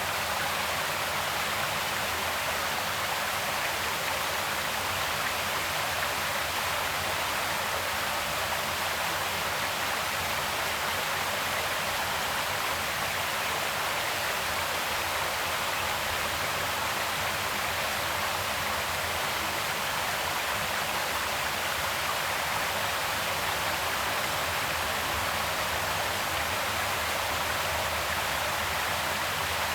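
Creek water flowing in a steady, even rush, with no change in level.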